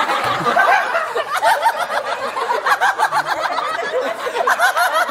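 A group of people laughing together, several high voices giggling and overlapping without a break.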